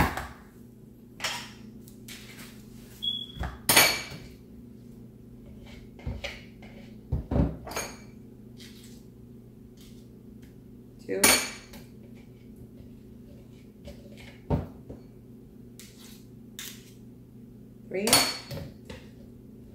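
Metal spoons clinking and knocking against the rim of a mixing bowl as spoonfuls of peanut butter are scraped off into it. There are a few sharp knocks several seconds apart and smaller clicks in between, over a low steady hum.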